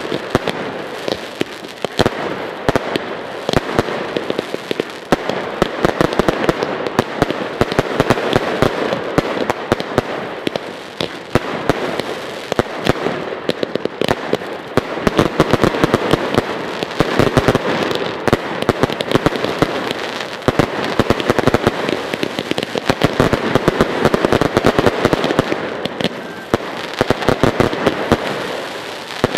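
Aerial fireworks firing and bursting in a rapid, unbroken barrage: many bangs and crackles a second, the grand finale of a display.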